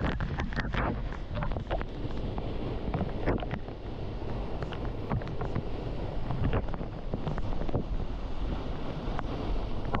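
Small waterfall pouring and splashing onto rock and into a pool at close range, a steady rushing with low rumble on the microphone and scattered sharp spatters of drops.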